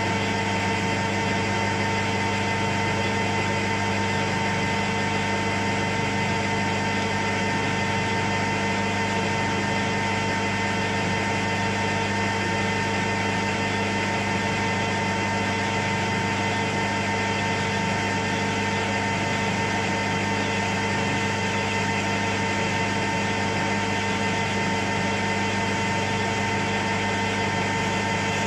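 Metal lathe running at a steady speed: an even hum with a higher whine over it.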